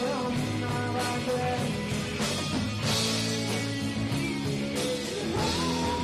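Live rock band performance: electric guitar and band playing a song, with a male singer's held, wavering note near the end.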